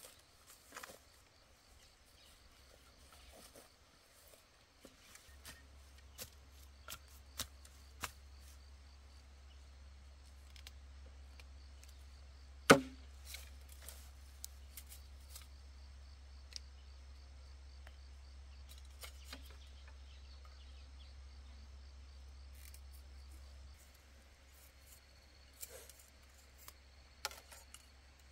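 Scattered light clicks and knocks, with one much louder sharp snap about thirteen seconds in, over a faint low hum.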